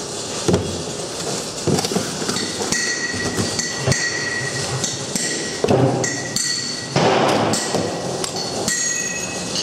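Hammer blows on steel, irregular and spaced out, several of them ringing on briefly with a high metallic tone, over steady site noise.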